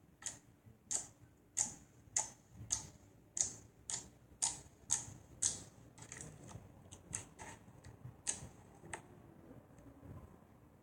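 Slime being squished and poked by hand, giving sharp popping clicks about twice a second. After about six seconds the clicks turn smaller and quicker, and they stop about nine seconds in.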